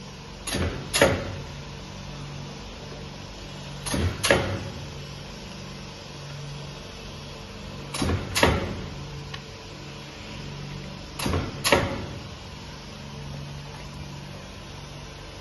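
Small cardboard die-cutting and grooving machine for rigid boxes cycling four times, each stroke a pair of sharp clunks about half a second apart, repeating every three to four seconds over a steady machine hum.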